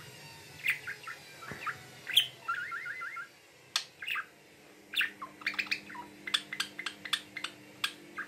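Budgerigar singing: a chattering string of short chirps and clicks, with a quick run of about five repeated notes near the middle and denser sharp chirps in the second half.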